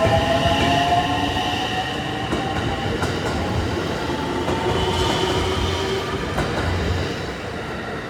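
JR West electric train passing close by: a steady rumble of wheels on rail with a whine that slides slightly in pitch, and a few sharp clicks over the rail joints. The sound fades off near the end.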